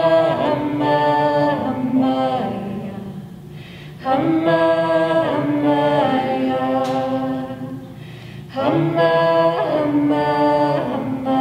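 Small group of voices singing a song unaccompanied, in long held phrases of about four seconds with short breaks between them, around 3 and 8 seconds in.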